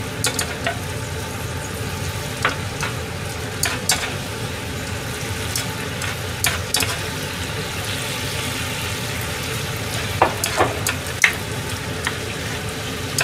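A metal ladle scooping meat sauce out of a frying pan and clinking now and then against the pan and a metal bowl, over the steady sizzle of the sauce cooking.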